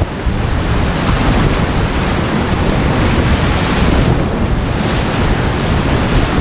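Loud, steady rush of a high-water whitewater rapid, heard up close from a kayak, with water splashing over the action camera.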